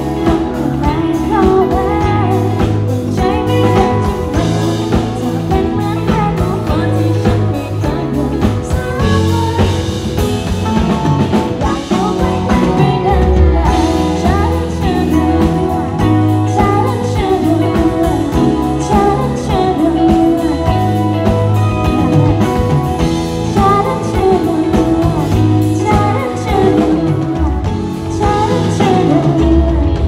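A woman singing a pop song live with a band of drum kit, electric guitar and keyboard, amplified through PA speakers.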